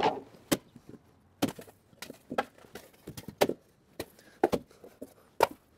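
Irregular sharp wooden knocks and clacks, about nine in all, as small cut-off strips of decking board are knocked loose and tossed aside.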